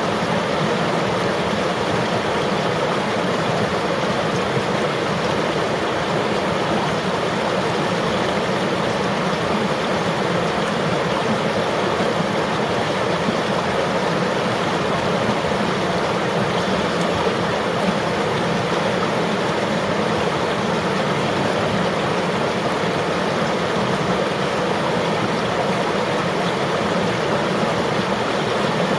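River water flowing and rushing steadily in an even, unchanging wash of sound.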